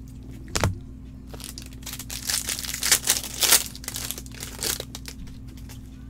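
A single knock about half a second in, then a few seconds of plastic wrapper crinkling and tearing in bursts as a pack of trading cards is torn open by gloved hands.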